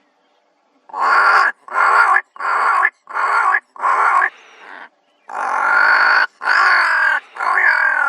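Ravens calling: five short calls about two-thirds of a second apart, then three longer, drawn-out calls.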